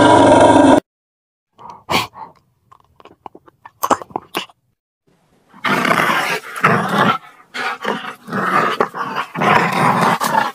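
An animal growling and roaring in a run of short, rough calls that starts about halfway through. Before that, a loud sound cuts off just under a second in, followed by a few faint clicks.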